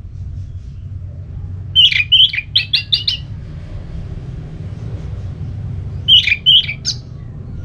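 Orange-headed thrush (anis merah) singing in its open 'ngeplong' style: a quick phrase of about six sharp, ringing notes about two seconds in, then a shorter phrase of four or five notes near the end. A steady low hum runs underneath.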